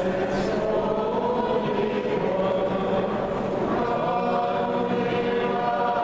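A group of voices chanting a prayer together in unison, with long held notes.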